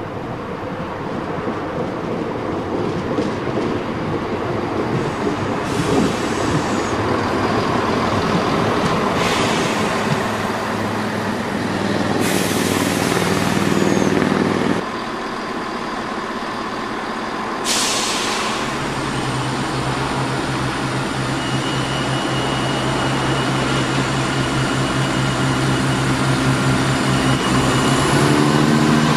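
A Class 170 Turbostar diesel multiple unit runs in and brakes to a stop, with several hisses of air from the brakes. The noise drops suddenly about halfway through and a burst of air follows. Its underfloor diesel engines then idle with a steady hum, and their note rises near the end.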